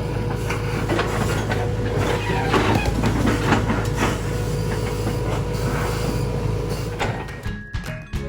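Backhoe engine running steadily under work, with scattered knocks and clanks as rocks are moved; it drops away in the last second.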